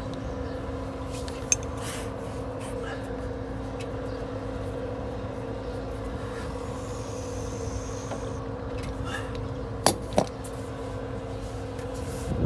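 A steady machine hum, with a few sharp metallic clicks: one about a second and a half in, two close together near the end.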